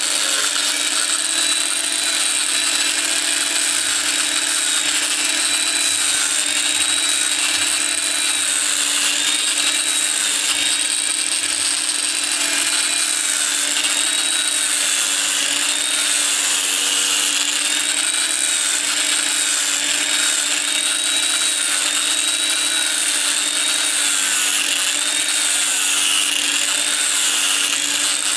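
Electric angle grinder with a sanding disc running continuously while it sands a leaf-spring steel knife blank. The motor whine dips and recovers every second or two as the disc is pressed onto the steel, over a steady gritty hiss.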